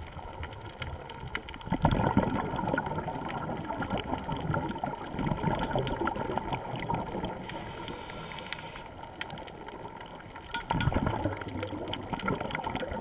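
A scuba diver's exhaled bubbles streaming from the regulator, heard underwater through a camera housing: a long rush of bubbles starting about two seconds in, easing off, then a second one near the end.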